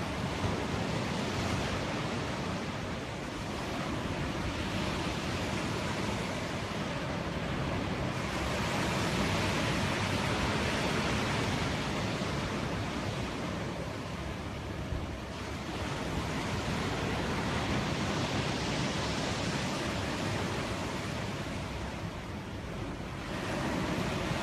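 Sea surf breaking along the beach below, a continuous wash of noise that swells and eases over several seconds as the waves come in.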